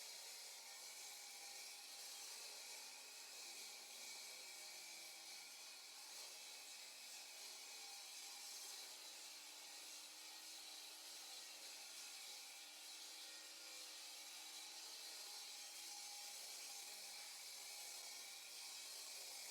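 Power saw cutting through a concrete slab, heard faintly as a steady, unbroken gritty hiss.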